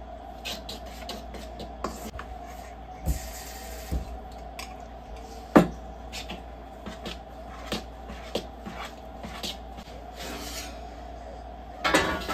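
Kitchen work sounds: scattered clicks and knocks of utensils and cookware being handled, with one sharp knock about five and a half seconds in and a brief clatter near the end, over a steady low hum.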